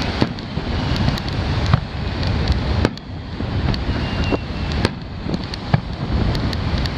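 Firework shells bursting in the distance: a string of sharp bangs and cracks about one a second, over a steady low rumble of wind and surf on the microphone.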